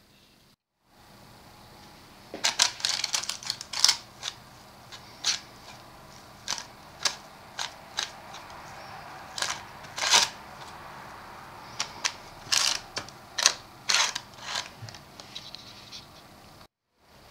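A metal spoon spreading and pressing thick chickpea cake batter into a parchment-lined cake ring: irregular sharp clicks and scrapes, one or two a second, over a faint steady hiss.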